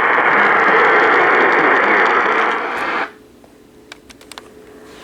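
Radio static: a steady hiss that cuts off abruptly about three seconds in, leaving a faint steady hum and a few soft clicks.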